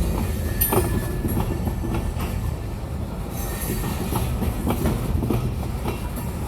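Freight train of covered hopper cars rolling past, with a heavy low rumble, steel wheels knocking irregularly over rail joints, and brief flange squeals now and then.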